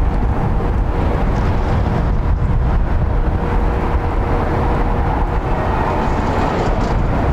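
Steady low rumble of outdoor traffic noise with a faint steady hum, and a minivan driving past about six seconds in.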